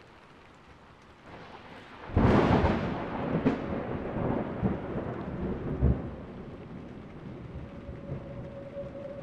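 Thunderstorm: steady rain falling, then a loud thunderclap about two seconds in that rolls on as a long rumble with a few further cracks.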